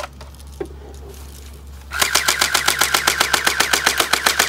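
Airsoft rifle firing a fully automatic burst: a rapid, even rattle of shots at about ten a second, starting about two seconds in.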